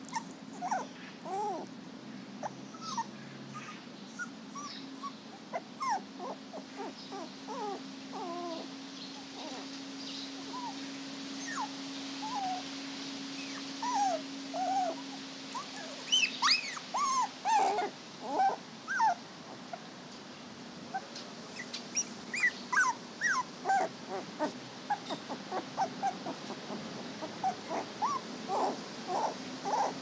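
Puppies whimpering in many short, high squeaks that rise and fall, coming more often and louder in the second half, over a faint steady low hum.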